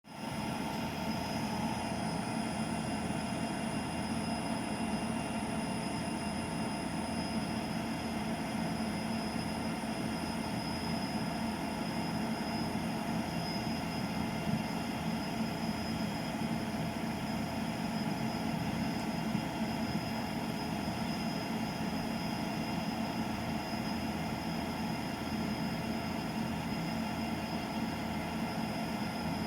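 Union Pacific train running steadily past, a continuous even rail noise with faint steady high whining tones and no break or swell.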